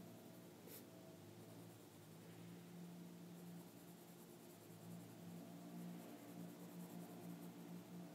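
Faint scratching of a Faber-Castell Polychromos coloured pencil shading on a colouring-book page, over a low steady hum, with one short tick near the start.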